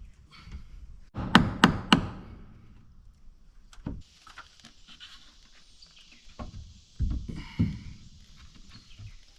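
Hammer blows on wooden siding: three sharp strikes in quick succession about a second in, then a few single knocks with pauses between them.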